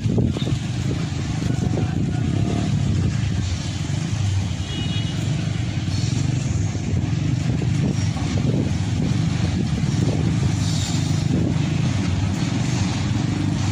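Diesel-electric locomotive engine running with a steady low rumble as the train pulls slowly into the station.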